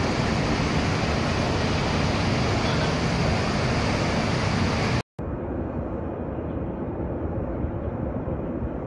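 Large petrochemical plant fire burning, heard as a steady, loud noise without any clear tone. About five seconds in, the sound cuts off for a moment, then returns quieter and duller from farther away.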